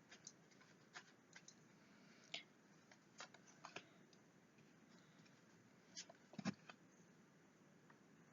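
Near silence broken by faint scattered clicks and light taps, with a slightly louder soft thump about six and a half seconds in.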